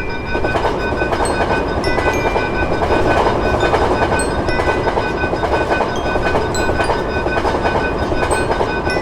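A train passing over a level crossing with a steady rumble of wheels on rails. The crossing's warning bell rings over it in quick, even strokes.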